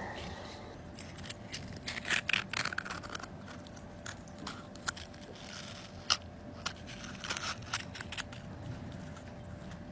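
Metal spoon scraping and clicking against the inside of a spiny sea urchin shell while scooping out its soft filling: a run of short irregular clicks, thickest about two seconds in, then scattered.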